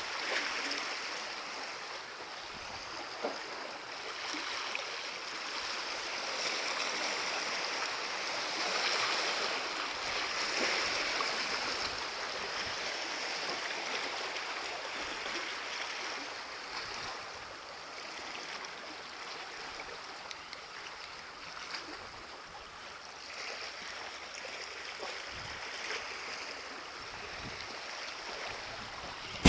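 Sea water lapping and washing against a breakwater, a steady wash that swells and eases gently.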